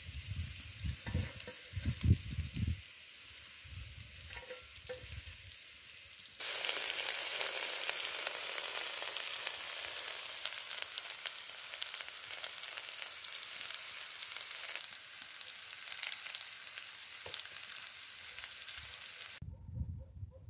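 Sliced potatoes frying in oil in a kadhai, with a light sizzle and a few low thumps at first. About six seconds in a loud, steady sizzle starts suddenly, and it cuts off about a second before the end.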